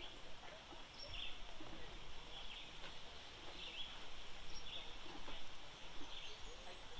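Faint outdoor ambience with a bird chirping over and over, about once a second.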